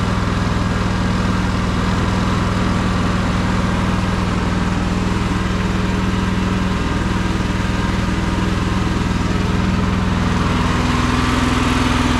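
Mini excavator's small air-cooled, carbureted gasoline engine running steadily while the hydraulic boom and bucket are worked. Its steady hum steps up a little in pitch about ten seconds in.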